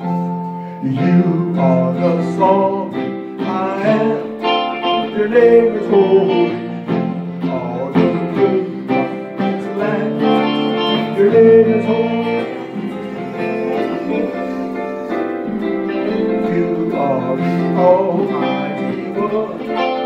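Electric guitar and keyboard playing an instrumental passage of a worship song, with the guitar picking a melodic line over sustained keyboard chords.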